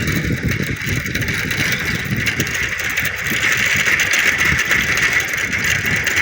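Bicycle being ridden, rattling as it rolls along, with a steady rushing noise and low rumble throughout.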